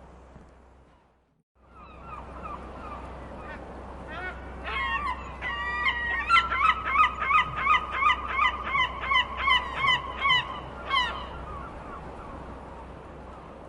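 Seagulls calling over a steady background rush. A few faint calls are followed in the middle by a loud run of about a dozen quick repeated calls, roughly two a second, before the calls fade out; the background cuts out briefly about a second in.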